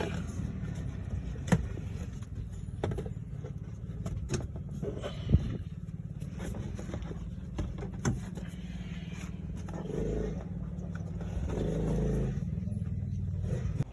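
Plastic clicks, knocks and scrapes of a Polaris Ranger's air filter being pulled out of its air box, over a steady low hum.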